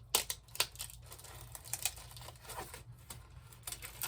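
A glue-stiffened crocheted snowflake motif being worked off its pinned cardboard backing, with stick pins tugged out: a run of irregular sharp clicks and crinkles, the loudest in the first second.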